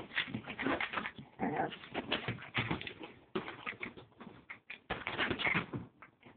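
Small terrier squirming and rolling on its back on a leather chair: an irregular run of short rubbing and scuffing noises against the leather, mixed with the dog's own small vocal noises.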